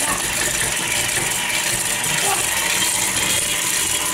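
KitchenAid Classic stand mixer running steadily, its wire whisk beating butter and sugar in the stainless steel bowl. The butter is still hard, so it breaks up into crumbs instead of creaming.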